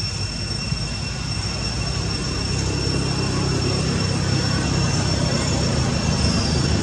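Outdoor background noise: a steady low rumble that grows slowly louder, with two steady high-pitched tones running above it.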